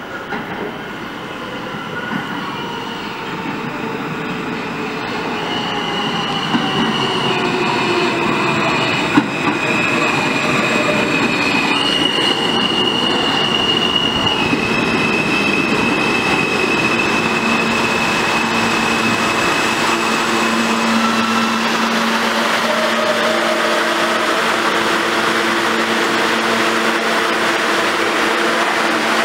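An R160 subway train pulling into the station and braking to a stop, its noise growing louder as it comes in. High-pitched whining and squealing tones that change pitch in steps sound as it slows, with one sharp click about nine seconds in. A steady low hum from the standing train takes over near the end.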